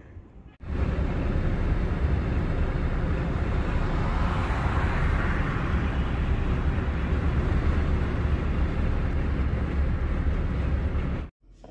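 Steady road, tyre and wind noise inside a 2015 Toyota Prius cruising on a highway at about 66 mph, a low rumble with hiss above it. It starts suddenly about half a second in and cuts off just before the end.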